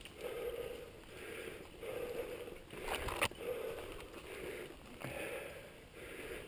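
Mountain-bike rider breathing hard in a steady rhythm, about one breath a second, while pedalling on a dirt singletrack, over the rumble of the tyres and the bike. A couple of sharp knocks sound about three seconds in, likely the bike striking a rock or root.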